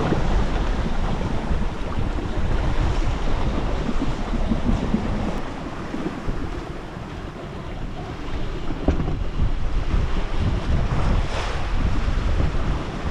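Wind buffeting the microphone with a heavy low rumble, over the wash of waves around a small sailboat.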